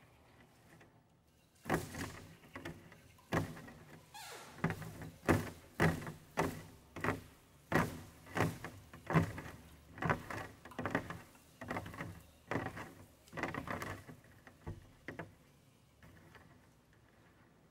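Taut stretched ribbon strands, a handmade sound-object instrument, worked by hand so they give a string of about twenty sharp, irregular twangs and knocks, each with a short ring. They begin about a second and a half in and stop around fifteen seconds in.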